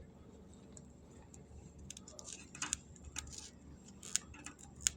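Jaggery, water and ghee cooking in a pan on the stove: faint, irregular crackling pops, with a few louder ones in the second half.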